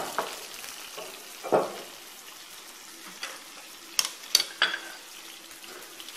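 Cooking noise around a clay tagine on a gas stove: a steady soft hiss, two short scrapes near the start, and three quick sharp clicks about four seconds in, like a utensil knocking against the pot.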